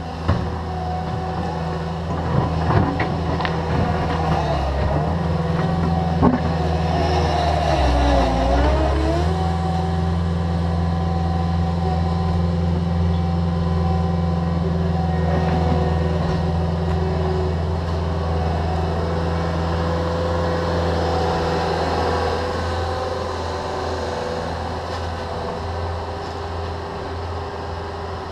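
Diesel engines of a Cat 305.5E2 mini excavator and a Cat 289D compact track loader running as they dig and scoop dirt. A few sharp knocks come in the first six seconds. The engine note dips in pitch and recovers about eight seconds in.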